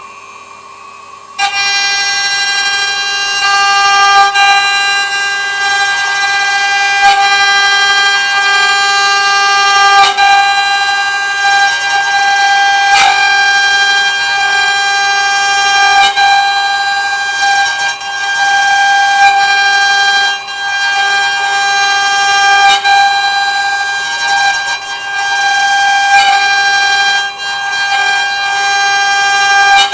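CNC wood router's spindle running: a steady high-pitched whine that holds one pitch throughout, coming in abruptly about a second and a half in, with a few faint ticks.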